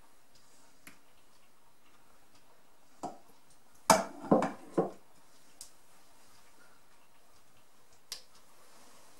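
Glass kitchenware knocking on a wooden board as boiled potato slices are laid into a glass baking dish: a light knock about three seconds in, a quick run of four louder knocks and clinks a second later, and a single tap near the end.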